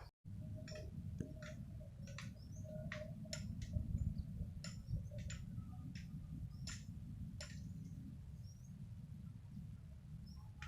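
Outdoor swamp ambience: scattered short, sharp chirps and clicks, roughly one or two a second, over a steady low rumble. The sound cuts out briefly right at the start.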